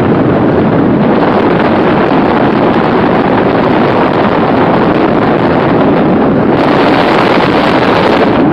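Loud, steady rush of wind buffeting the microphone from a moving car's open window, mixed with road noise; it turns hissier about six and a half seconds in.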